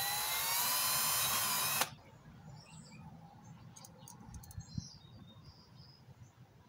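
Cordless drill drilling a hole through a mounting bracket: its whine rises as the motor spins up, holds steady, then cuts off sharply just under two seconds in. A few faint clicks follow.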